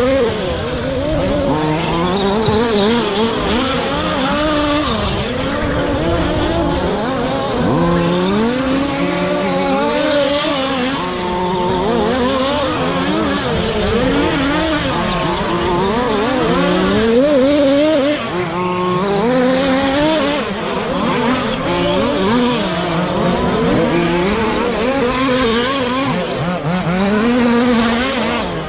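Several radio-controlled 1/10 short course trucks racing, their motors whining up and down in pitch as they accelerate and brake around the track, several at once.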